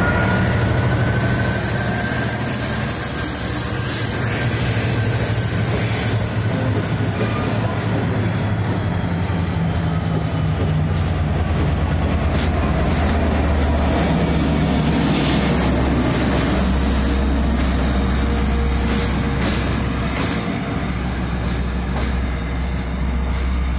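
Long Island Rail Road DE30AC diesel-electric locomotives and bilevel coaches pulling out past the platform: a steady low diesel drone under a high wheel squeal that rises and then slowly falls away. From about halfway on, sharp clicks from the wheels over the rail joints come through.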